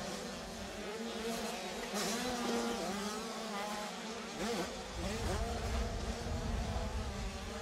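85 cc two-stroke motocross bikes racing, their small engines buzzing and revving up and down.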